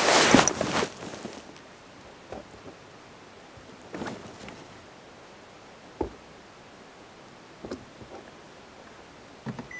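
Backpack fabric rustling as the pack is handled right at the microphone, loud for about the first second, then a few soft rustles and light knocks.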